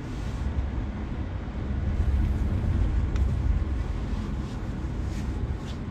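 Steady low rumble of a car heard from inside the cabin: engine and road noise. A few faint clicks come near the middle and near the end.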